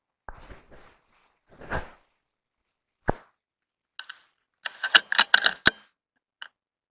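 Metallic handling sounds from a scoped hunting rifle. Two soft rustles come first, then a single sharp click about three seconds in, then a quick cluster of ringing metallic clicks and clinks between about four and six seconds.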